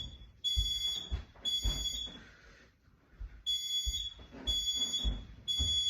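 Smoke detector's piezo sounder going off in the temporal-3 evacuation pattern: three high-pitched beeps of about half a second each, a pause of over a second, then three more. It has been set off by aerosol test smoke sprayed into the detector.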